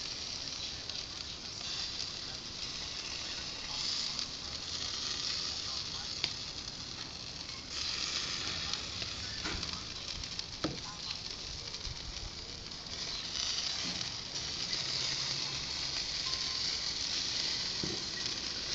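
Hamburger patties sizzling on a charcoal grill grate: a steady hiss, with a couple of sharp clicks around the middle.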